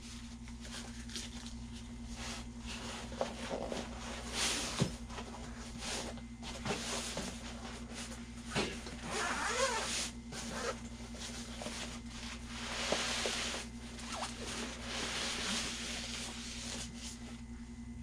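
Rustling and handling noise from a soft carry bag being opened and a recurve bow being drawn out, irregular scuffs with a few light knocks. A steady low hum runs underneath.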